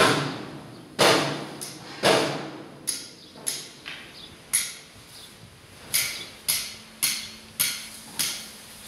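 Hammering: a series of sharp blows, about one a second at first and then quicker and uneven, each with a short ringing tail.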